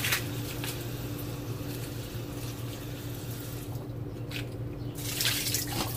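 Kitchen faucet running into a bowl in the sink while hands wash the food in it, the water splashing louder near the end. A low steady hum runs underneath.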